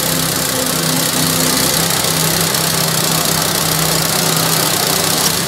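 Honda WB30XN 3-inch water pumps running together, their single-cylinder Honda GX160 petrol engines holding a steady, even run.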